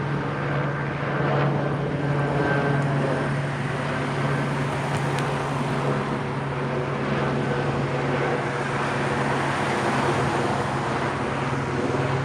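Steady engine drone with a constant low hum and its overtones, holding even throughout.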